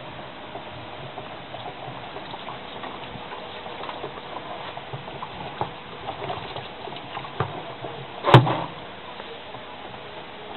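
Light clicks and knocks from work on a washing machine's drum assembly as it is being dismantled, with one much louder knock a little past eight seconds in.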